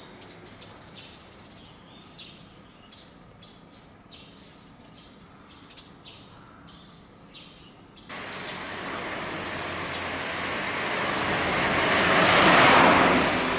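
Birds chirping in short, scattered calls over a quiet background. About eight seconds in, the noise of a passing vehicle sets in suddenly, swells to a loud peak near the end and begins to fade.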